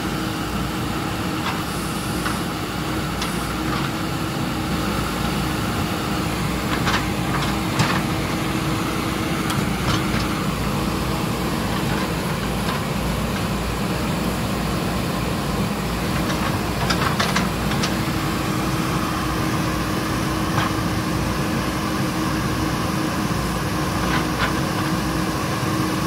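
JCB backhoe loader's diesel engine running steadily under load as the backhoe digs in wet mud, with a few short knocks from the arm and bucket.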